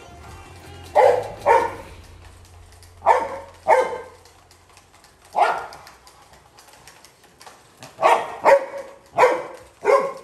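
Labrador retriever barking, about nine short barks in irregular pairs and singles.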